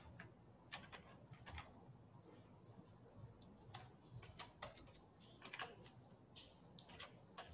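Faint computer keyboard keystrokes, scattered single clicks as text is typed. In the first half, short high chirps repeat about three times a second.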